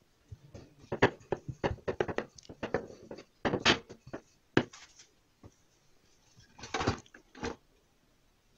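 Knocks and clatter of kitchen tools handled on a wooden tabletop: a wooden rolling pin set down and a metal hand-cranked pasta machine shifted into place. A quick run of knocks comes in the first half, then a second short cluster near the end.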